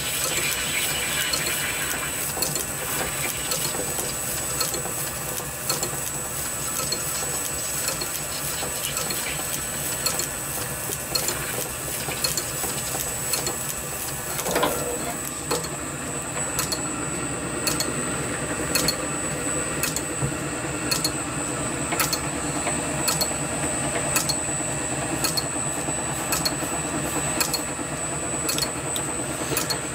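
Small metal lathe running, turning down the outside of a 50 mm brass bar for a model steam engine flywheel: a steady motor and gear whine with cutting noise. About halfway through the sound changes and a regular tick sets in, about once a second.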